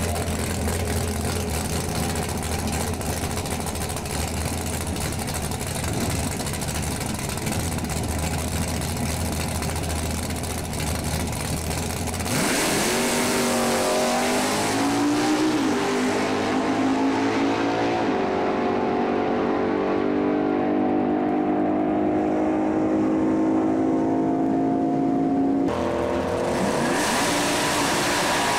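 Carbureted, tunnel-rammed V8 of a drag car: a loud rumble at the starting line, then about twelve seconds in a full-throttle launch, the engine note climbing in pitch through the gears, dropping back twice, and growing duller as the car runs off down the strip. Near the end it cuts to the engine revving at the line again.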